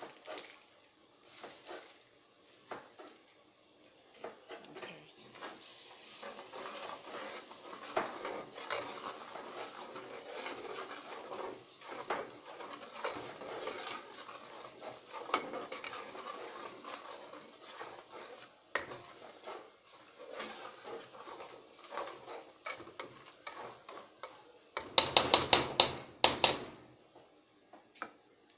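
A metal spoon stirring and scraping chopped vegetables frying in oil in a metal pot, over a steady sizzle. Near the end comes a quick run of loud knocks against the pot.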